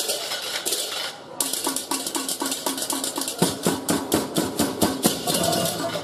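Balinese baleganjur gamelan playing: fast, dense interlocking strokes of ceng-ceng kopyak hand cymbals over drums. The cymbals thin out briefly about a second in, then come back, and sustained pitched gong tones join about three and a half seconds in.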